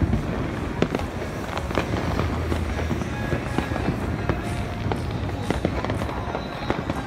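Fireworks going off across the city at various distances: frequent scattered pops and bangs over a steady low rumble.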